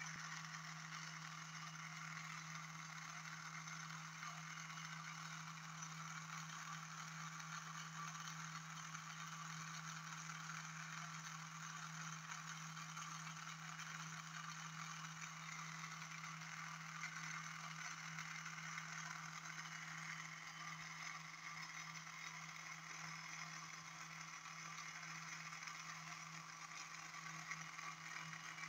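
Bedini SHK pulse motor/generator running steadily: an even, unchanging low hum with a faint rattly hiss above it.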